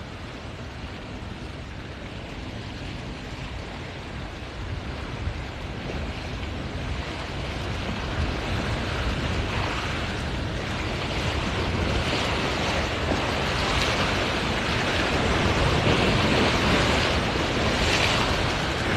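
Waves washing at the inlet with wind on the phone's microphone: a steady, even rushing that grows gradually louder.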